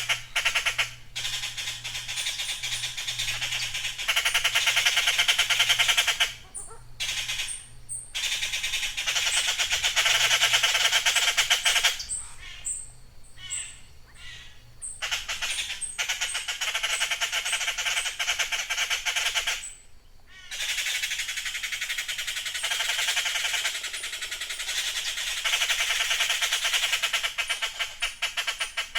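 Blue jays giving harsh, raspy calls in long runs of rapid pulses, broken by short pauses every few seconds.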